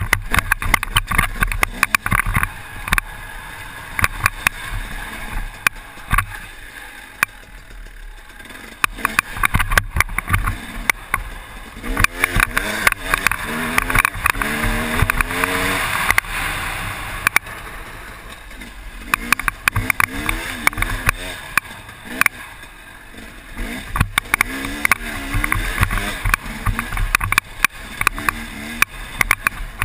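KTM 250 EXC two-stroke enduro engine revving up and down under riding load, its pitch rising and falling with the throttle. Frequent knocks and rushing noise come from a helmet-mounted camera as the bike goes over rough ground.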